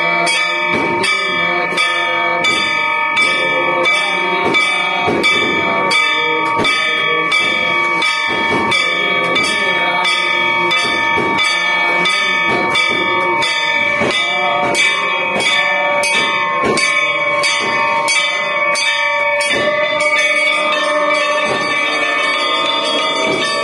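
Hand-held metal temple gong struck with a stick in a steady beat, about two strokes a second, each stroke ringing on into the next, for the aarti.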